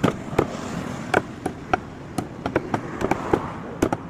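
Chicken being chopped with a knife on a chopping block: a run of about ten sharp, irregularly spaced knocks.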